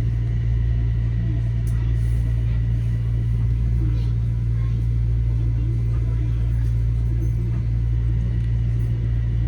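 Steady low rumble and hum of a train, unchanging in level, with faint voices in the background.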